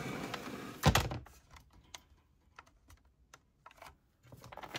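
Packed gear being handled inside a cooler: one knock about a second in, then scattered light clicks and taps as items are shifted, with a little rustling near the end.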